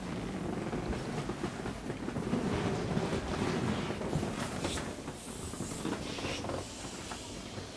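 Taut vinyl of an inflatable pool toy being pressed and rubbed by furry fursuit paws: continuous rubbery creaking and rustling with small clicks, easing off near the end. It has not popped.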